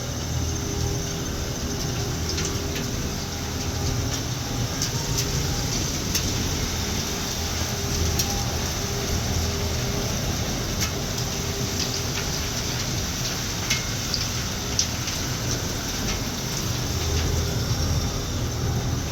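Wood-shavings machine running behind a closed mill door: a steady mechanical hum and hiss, with a low drone that swells and fades every few seconds and irregular sharp ticks scattered throughout.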